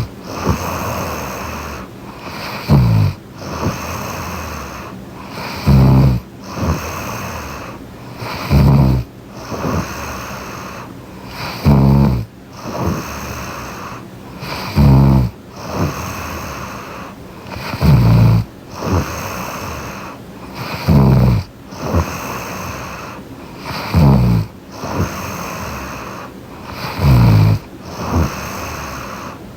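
A woman snoring in her sleep, close to the microphone: a loud, low snore about every three seconds, with softer breathing between.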